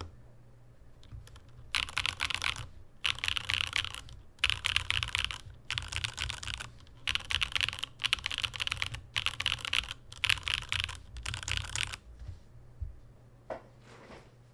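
Typing on a Mode Sonnet mechanical keyboard with Sillyworks x Gateron Type L linear switches, an aluminium plate, top mount and no foam. The keystrokes come in fast bursts of about a second each with short pauses between them, and die away about twelve seconds in.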